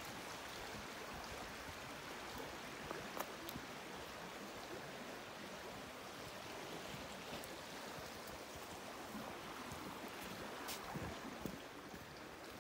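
Creek water running steadily, with a few scattered light clicks on top.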